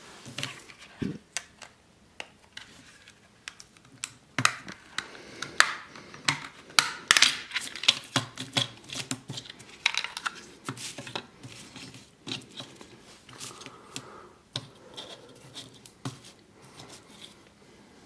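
Plastic clicks, snaps and scraping as an Imperial TV remote control is taken apart by hand, its plastic casing, face plate, rubber keypad and circuit board handled and lifted apart. The clicks come in quick irregular clusters, thickest through the middle and thinning out toward the end.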